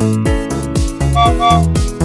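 Upbeat instrumental children's-song music with a steady beat: a bouncy bass line whose notes slide downward about twice a second, under short higher melody notes.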